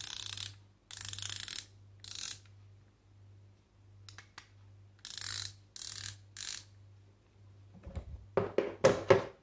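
Ratchet screwdriver bit holder clicking as its ratchet is worked back and forth, in about six short bursts of rapid clicks. Near the end come a few handling knocks as it is put back into the case.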